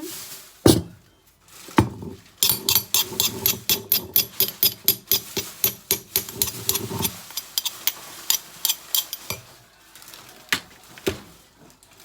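Kitchen food preparation: a utensil knocking repeatedly and sharply, first a couple of single knocks, then a fast run of about five knocks a second for several seconds, then slower scattered knocks.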